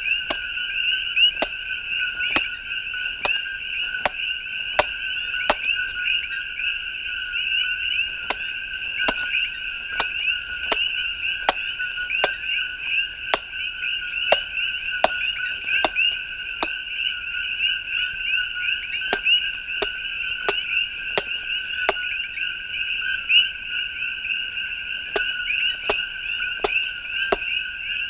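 Bark River Tracker knife chopping into a coconut: sharp knocks at an uneven pace, about one or two a second, over a steady two-note chorus of calling frogs, typical of the coqui frogs of Hawaiian jungle at night.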